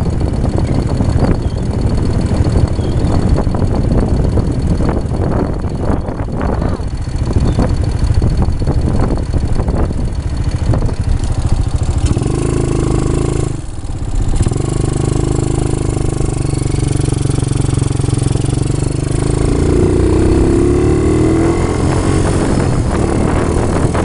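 Quad bike (ATV) engine running as the four-wheeler is ridden on sand, with the engine pitch climbing about four-fifths of the way through.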